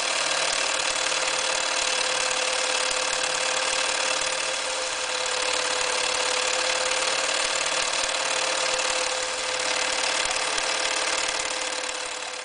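Bernina Record 730 electric sewing machine running steadily at speed, its motor whining under the fast chatter of the needle and feed mechanism, dying away at the very end.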